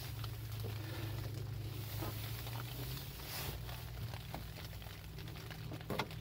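Light clicks and rustling from a plastic radiator mounting bracket being handled and slid into place on the core support, with a few sharp clicks near the end, over a steady low hum.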